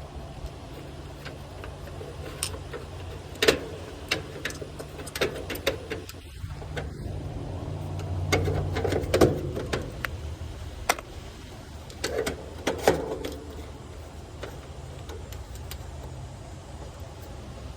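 Scattered clicks and knocks of hands and tools working on an air-conditioner condenser's electrical parts while a capacitor is being swapped, over a steady low hum.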